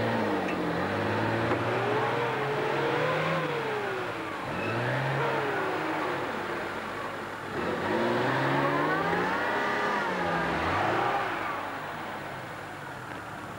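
Off-road 4x4 engine revving up and down several times, the pitch climbing and falling with each rev, while a stuck vehicle is recovered from a muddy ditch on a tow strap.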